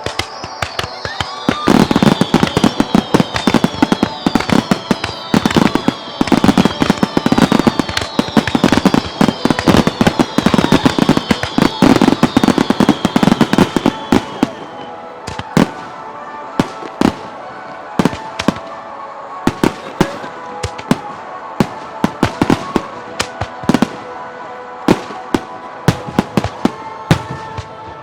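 Aerial fireworks going off in a rapid barrage of bangs and crackles, with many overlapping falling whistles through the first half. After about fifteen seconds it thins to scattered single bangs.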